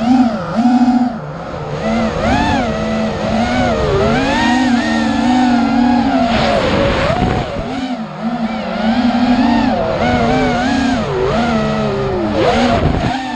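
Racing miniquad's brushless motors whining, the pitch rising and falling constantly as the throttle is worked through the course.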